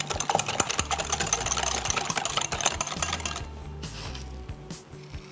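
Wire whisk beating mustard, honey and sugar in a glass bowl: a fast run of small clicks and scrapes against the glass that stops about three and a half seconds in. Soft background music runs underneath.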